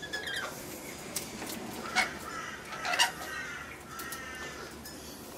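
Rainbow lorikeets chattering and screeching, with two loud shrieks about two and three seconds in.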